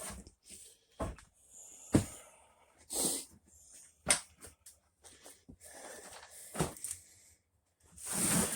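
Scattered knocks, clunks and rustling of junk being handled and moved about, roughly one knock a second, with a longer rustle near the end.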